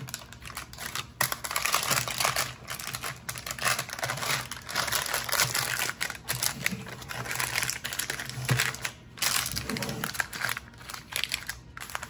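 Parchment paper crinkling and rustling in irregular bursts as a silicone spatula spreads a very thick batter in a lined square metal pan, with short pauses between strokes.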